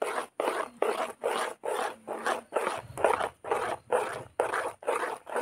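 Metal spoon stirring a thick semolina batter in a metal bowl, scraping and squelching against the bowl in a steady rhythm of about two to three strokes a second.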